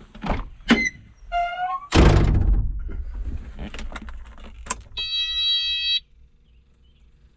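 Excavator cab sounds before start-up: clicks and a clunk with rattling, a short run of electronic chirps, then a steady electronic buzzer for about a second that cuts off suddenly.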